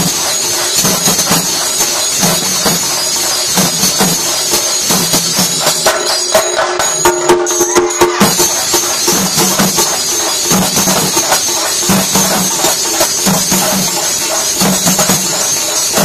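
A marching drum troupe beating large stick-struck drums in a fast, dense rhythm, with a constant metallic jingling of cymbals over it. A short pitched tone sounds for about two seconds near the middle.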